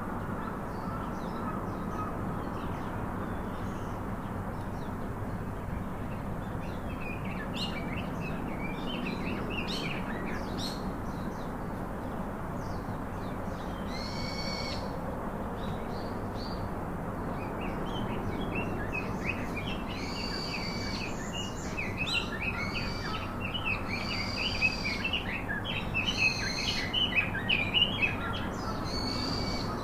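Several birds chirping and calling in quick clusters of short, high notes over a steady background hiss. The calls are sparse in the first half and grow busier and louder in the last third.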